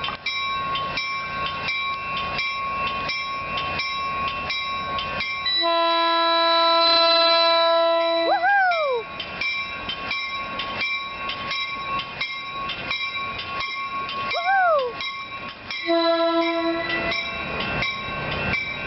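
A Caltrain diesel locomotive horn sounds a long chord of about three seconds, then a shorter blast near the end, while a train rumbles past. Throughout, a rapid steady ringing of about three strikes a second goes on underneath.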